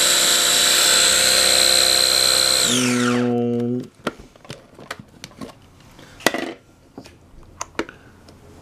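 Small electric food processor running steadily with a high whine as it churns heavy whipping cream toward butter. About three seconds in it is switched off and spins down with a falling whine, followed by a few light clicks as the bowl is handled.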